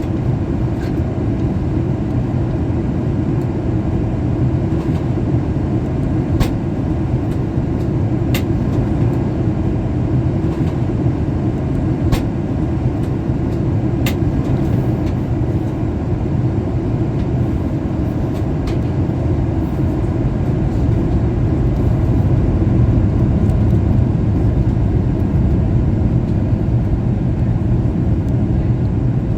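Steady low rumble inside the cabin of a Boeing 737 MAX 8 in descent, from airflow and engines, growing slightly louder about two-thirds of the way through, with a few faint ticks.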